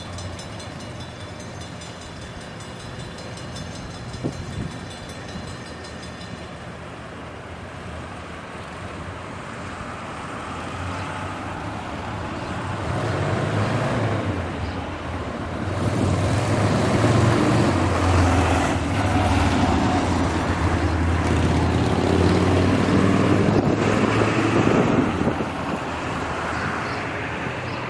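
Diesel locomotives of a slow freight train approaching: NYS&W EMD SD40T-2 and SD40-2 units, each with a 16-cylinder 645 engine. A low engine rumble grows steadily louder from about halfway through, with a faint high tone over the first six seconds.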